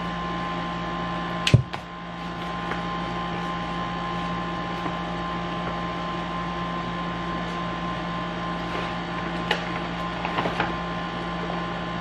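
Steady electrical appliance hum with a fixed pitch, broken by one sharp click about one and a half seconds in. A few faint taps and rustles near the end, from a paper gift bag being handled.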